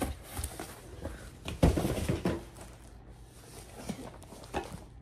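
Heavy cardboard shipping box being handled and wrestled open: scattered knocks, a loud thump and tearing about a second and a half in, then cardboard scraping and rustling with a couple of knocks near the end.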